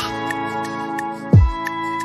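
Soft instrumental background music: held chords over a steady light ticking beat, with one deep drum hit partway through.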